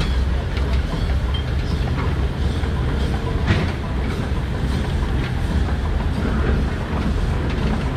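Thew Type O steam shovel's steam engine and gearing running steadily as the shovel travels, a low rumble with scattered mechanical clanks and one sharper knock about three and a half seconds in.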